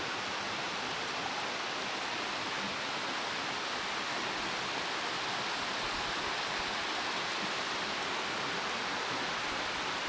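Heavy rain falling steadily, an even hiss with no thunder or other distinct sounds.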